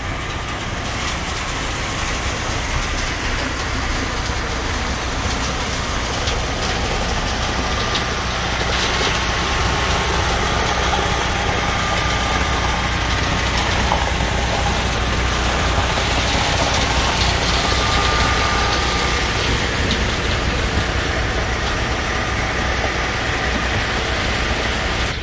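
Terex front-discharge concrete mixer truck running steadily as it discharges concrete down its chute, a constant engine rumble with a wide rushing noise over it.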